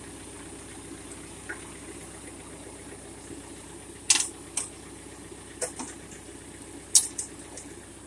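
John Deere compact tractor engine running steadily at idle, with several sharp metallic clinks in the second half as the backhoe mounting pin is pulled by its handle.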